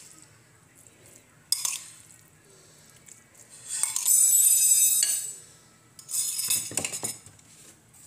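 A spoon scraping and clinking against dishes in a few bursts, the longest and loudest about four seconds in, as soaked sago pearls are spooned into a bowl of mango jelly cubes.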